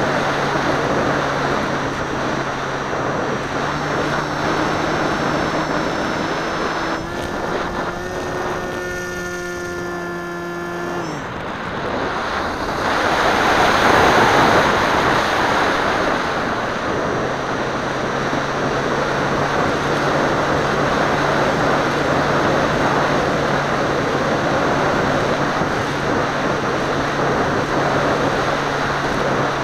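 Seawind model seaplane in flight, heard from a camera on the aircraft: a steady motor-and-propeller hum with wind rushing over the microphone. About seven seconds in, the hum climbs a little in pitch, then drops away suddenly around eleven seconds. A loud rush of wind swells a few seconds later, and the steady hum comes back after about seventeen seconds.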